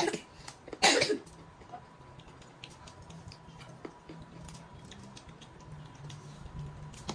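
Two short coughs about a second apart, then quiet eating with scattered faint clicks of forks.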